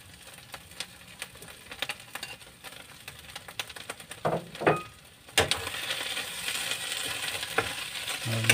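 Sardine sisig frying in a nonstick pan on a gas burner: faint sizzling with scattered light clicks of a utensil. About five seconds in there is a sharp clack, then a louder, steady sizzle as the mix is stirred with a spatula.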